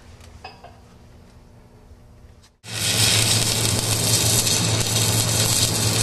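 Quiet room tone, then about two and a half seconds in a welding arc strikes and runs with a loud, steady crackling hiss over a low buzz.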